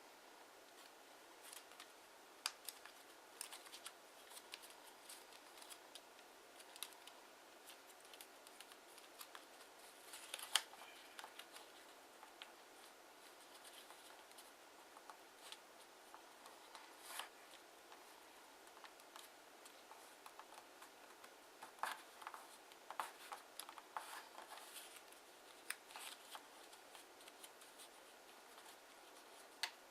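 Kraft origami paper being handled and folded by hand: faint, scattered crisp rustles and crackles of creasing paper, busier around ten seconds in and again between about twenty-two and twenty-six seconds.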